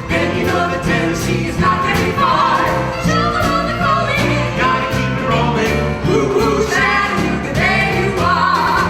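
Live music: a singer holding long notes with vibrato over a band, with a steady stepping bass line underneath.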